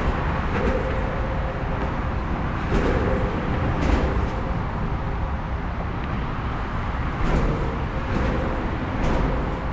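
Steady rumble and hiss of heavy traffic crossing an interstate bridge, with several brief clunks scattered through it.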